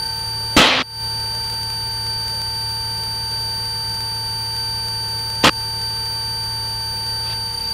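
A steady, unbroken electronic tone, one pitch near 1 kHz with a higher companion, heard through the light aircraft's intercom audio. Underneath it is the low, even drone of the Cessna 182RG's engine, and there are two short clicks, about half a second and five and a half seconds in.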